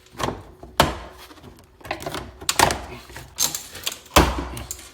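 Irregular knocks and clicks of hard plastic against a car door panel as a trim tool works at the panel's retaining clips, about six in all, the loudest a dull thump near the end.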